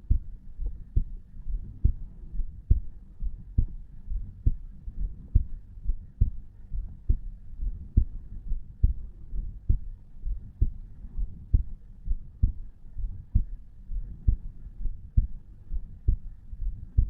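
A 34-year-old man's heartbeat at rest, recorded over the tricuspid valve: steady lub-dub pairs of low thuds, the valves closing about 68 times a minute in an even rhythm.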